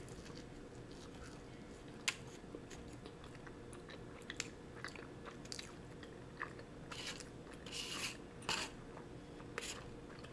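Close mouth sounds of someone biting and chewing a warmed chocolate croissant: scattered soft clicks and crackles, with a few louder noisy bursts in the second half.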